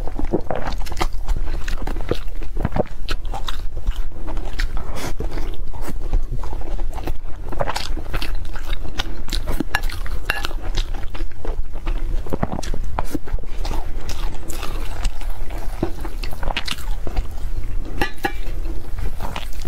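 Close-miked mukbang eating sounds: wet chewing, lip smacking and crunching, in a dense, irregular run of clicks, over a steady low hum.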